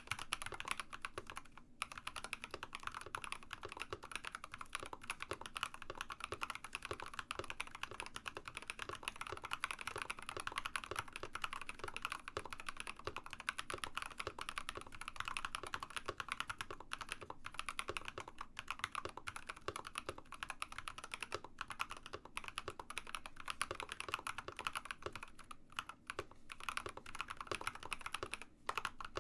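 Continuous typing on an Ikki68 Aurora mechanical keyboard fitted with Builtbynim long-pole linear switches (nylon top housing, polycarbonate bottom housing, long POM stem): a dense, steady stream of key clacks with a few brief pauses.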